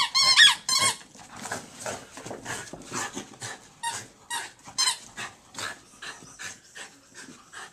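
Jack Russell terrier panting fast and hard while mouthing a squeaky toy mouse. The toy gives a few sharp, high squeaks in the first second and squeaks again about four and five seconds in.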